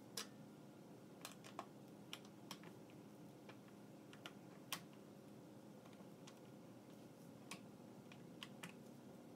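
Faint, irregular small clicks and taps of an Allen key and the metal wire leg frame as screws are turned into the underside of a chair seat during assembly.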